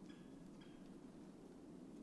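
Near silence with two faint, short bird call notes in the first second, over a low steady background rumble.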